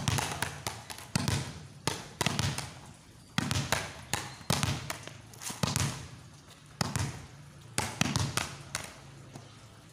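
Volleyball slapped down by hand onto a concrete floor and bouncing back up, again and again, mixed with a child's rubber ball bouncing on the same concrete. Sharp smacks come at an irregular pace of about one or two a second, some in quick pairs.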